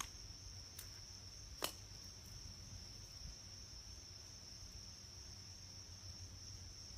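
Crickets trilling steadily at a high pitch, with one sharp click about a second and a half in.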